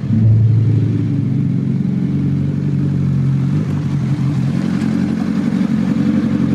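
Motorcycle engine running steadily at an even, low pitch.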